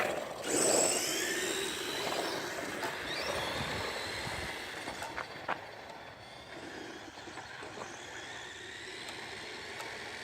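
Small electric RC cars, a Traxxas LaTrax among them, driving at speed: a high motor whine glides up and down in pitch over the first few seconds, then fades to a steady hiss, with a sharp click about five and a half seconds in.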